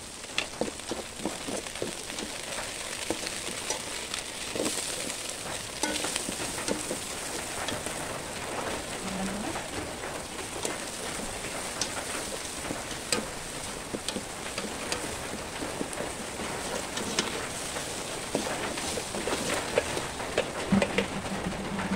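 Spaghetti sauce sizzling in a metal pot, with a metal spoon clicking and scraping against the pot as it is stirred.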